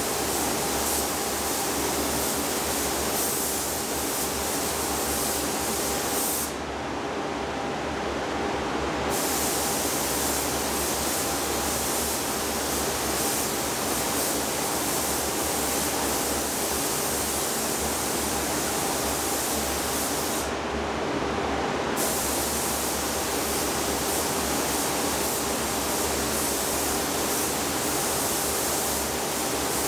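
Gravity-feed paint spray gun hissing steadily while spraying clear coat. The trigger is let off twice for a second or two, about a quarter of the way in and again about two-thirds of the way through, leaving only a steady lower hum underneath.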